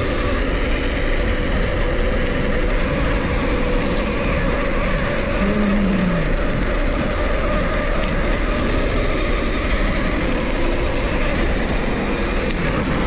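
Steady rush of wind on the microphone and tyre noise from a mountain bike being ridden.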